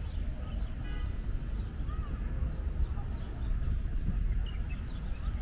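Outdoor ambience on a waterfront promenade: a steady low rumble with scattered short high chirps and brief calls over it, one pitched call about a second in and another about two seconds in.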